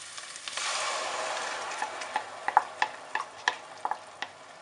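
Crushed tomato hitting hot olive oil and frying onion in a steel pot: a loud sizzle starts about half a second in and dies down. Then come a series of sharp knocks and clacks from a wooden spoon as the tomato is scraped out of the bowl and stirred in.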